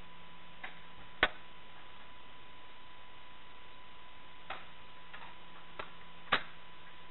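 Sharp single cracks of airsoft guns firing, two louder ones about five seconds apart and a few fainter ones between, over a steady faint electrical hum with a thin high tone.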